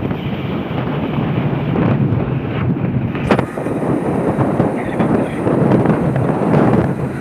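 A vehicle running steadily with wind buffeting the microphone, with a few brief knocks.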